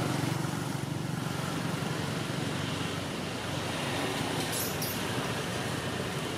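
Steady low outdoor background rumble, with a brief high-pitched sound about two-thirds of the way through.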